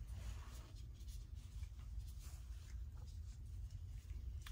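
Faint scratchy rustling and light taps of things being handled on a work table, over a low steady hum.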